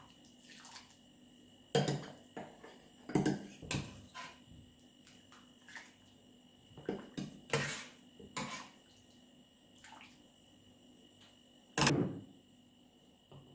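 A spoon knocking and scraping in a stainless steel food-processor jug as chicken soup is stirred and scooped. There are a dozen or so separate clinks and scrapes at irregular intervals, with some splashing of liquid, the loudest knock near the end.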